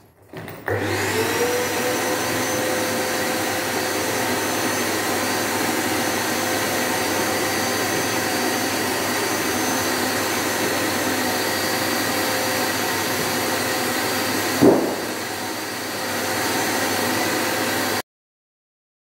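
Wet-and-dry drum vacuum cleaner switching on, its motor whine climbing to a steady pitch, then running steadily while the hose sucks over a carpeted floor. About 15 seconds in there is a sharp knock, and the sound drops for a moment before building back up. It cuts off suddenly near the end.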